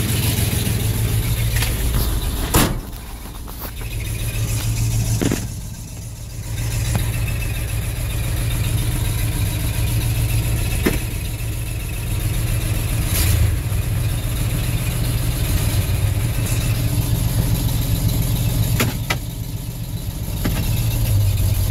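1974 Ford F100's 360 V8 engine running steadily while the truck is driven slowly, heard from inside the cab. A single sharp bang about two and a half seconds in.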